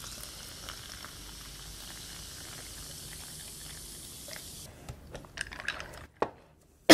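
Ghost pepper cola poured from a bottle over ice into a glass, fizzing with a steady hiss that stops suddenly about four and a half seconds in. A few light knocks follow as the bottle is set down.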